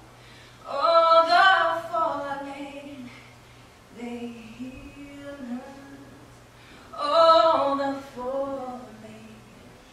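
A woman singing unaccompanied: three long, wavering phrases, starting about a second in, about four seconds in and about seven seconds in, the first and last loudest.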